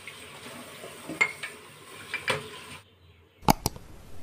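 Spatula stirring curry in an aluminium pot, scraping and lightly knocking against the pot a few times. After a sudden drop about three seconds in, two sharp clicks come close together.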